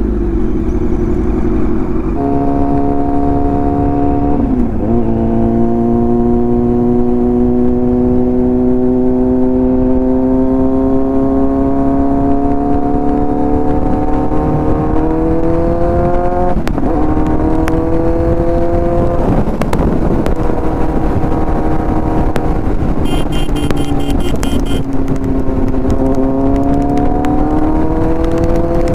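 Kawasaki Z900's inline-four engine with an aftermarket exhaust, under way on the road over heavy wind noise: its pitch climbs slowly and drops sharply three times as the gears change, eases off, then climbs again near the end.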